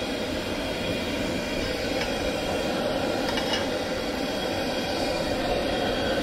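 High-powered propane wok burner running with a steady rushing noise, with a few faint clicks.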